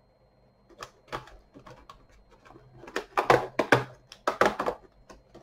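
Cardboard advent calendar door being worked open and its packaging handled: a run of crackles and knocks, busiest and loudest from about three seconds in.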